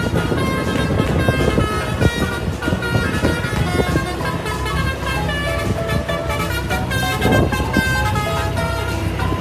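Multi-tone 'telolet' bus horn sounding a string of melodic toots at changing pitches, over the running vehicle.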